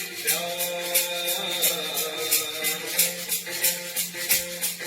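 Instrumental break in a Hindi film song: a quick, even high rattling rhythm, about five or six strokes a second, over steady held melody notes.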